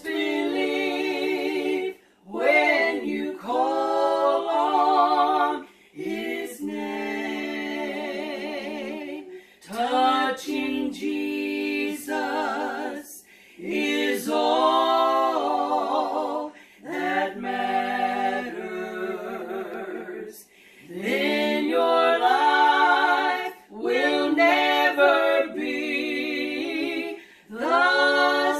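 Three women singing a worship song together without accompaniment, in phrases of a few seconds broken by short pauses.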